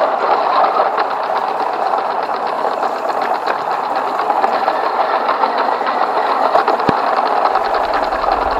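Lego electric train running at full speed on plastic track, heard close up: a steady, fast clatter from its small motor, gears and wheels.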